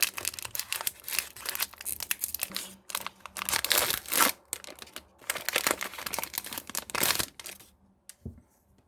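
Foil wrapper of a Magic: The Gathering Core Set 2020 booster pack crinkling and tearing as it is pulled open by hand, a dense crackle that stops near the end.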